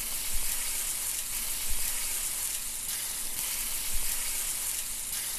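Food sizzling steadily on a hot cooking surface.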